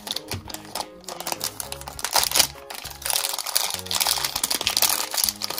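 Plastic toy packaging crinkling and rustling as small blind-bag surprises are unwrapped by hand, over background music.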